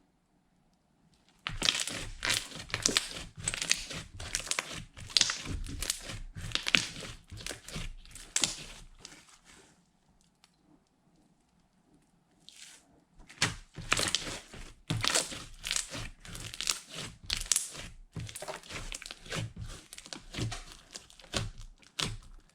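Slime being squished and pressed by hand, with dense crackling and popping of trapped air. It comes in two long stretches, with a pause of a few seconds between them.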